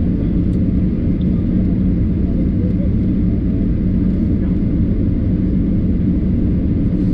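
Steady cabin noise inside a Boeing 737-800 on the ground: an even low rumble with a constant hum.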